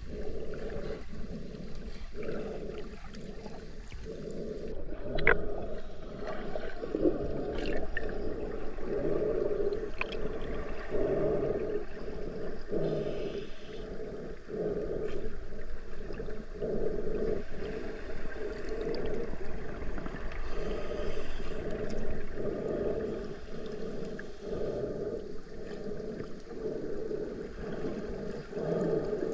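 Muffled water sound heard through a camera held underwater while snorkeling: sloshing and gurgling that swells about once a second, with a few faint sharp clicks.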